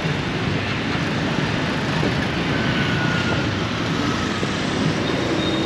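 Steady noise of city street traffic, an even running sound with no single vehicle standing out.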